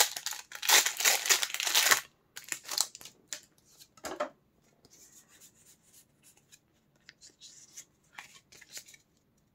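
Foil Pokémon booster pack wrapper being torn open, with a loud tearing and crinkling lasting about a second and a half, then softer rustling and scattered light clicks as the cards are slid out and handled.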